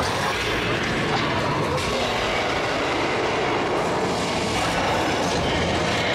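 Studio-tour tram rumbling and rattling, heard from inside the open car during the King Kong attraction segment: a loud, steady din with no separate strikes.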